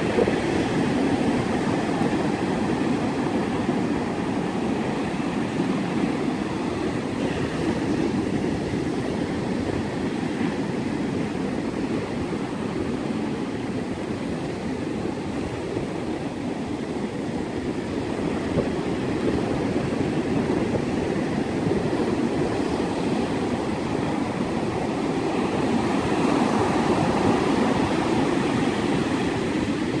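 Ocean surf breaking and washing up a sandy beach in a strong wind: a steady rushing noise of waves that swells louder and softer, loudest at the start and again toward the end.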